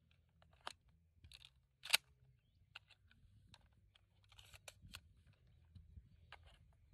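Pump-action 12-gauge shotgun being handled: a series of short, sharp metallic clicks and clacks, the loudest about two seconds in, over a faint low rumble.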